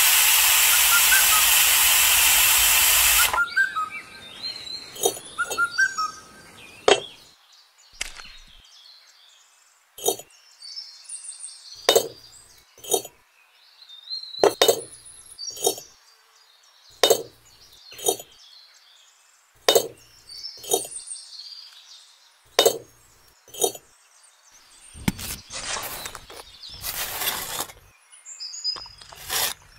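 A loud steady hiss that cuts off suddenly about three seconds in, then a run of sharp clinks of small hard objects, one every second or so and often in pairs, with birds chirping between them. A rushing noise swells near the end.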